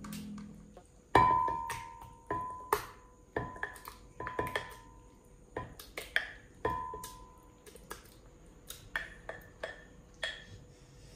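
A spoon clinking against a glass blender jar as avocado flesh is scooped in: a run of irregular clinks, several ringing briefly, the loudest about a second in.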